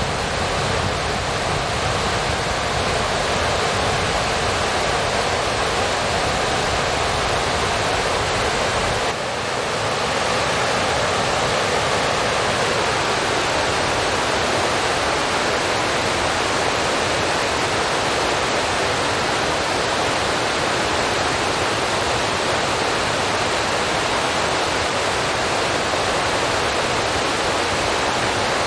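Steady, even rushing noise with no pitch or rhythm, with a brief dip about nine seconds in.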